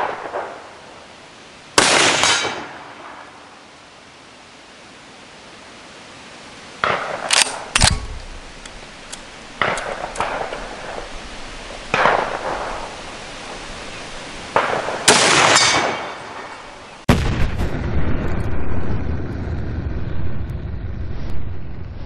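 Rifle shots from a Merkel Helix straight-pull bolt-action rifle in .308 Win, several sharp cracks each with a short echoing tail, with smaller clicks of the action being worked between them. About three-quarters of the way in, music takes over.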